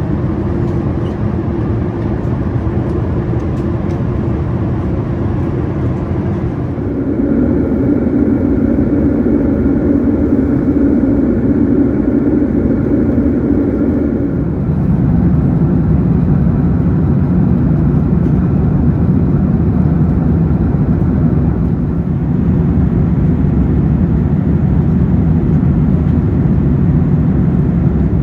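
Airbus A380 with Rolls-Royce Trent 970 engines: a steady, loud jet airliner drone of engines and airflow. The drone shifts abruptly in tone twice, about a quarter and about halfway through.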